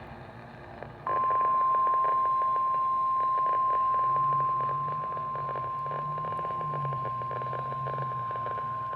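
NOAA Weather Radio warning alarm tone: a single steady high-pitched beep near 1,050 Hz starts about a second in and holds unbroken over crackly radio static. It signals that an emergency warning message follows.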